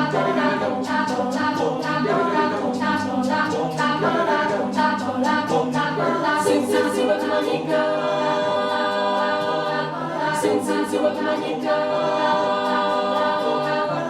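School choir singing a cappella in several parts: short rhythmic notes at first, then long held chords from about six seconds in.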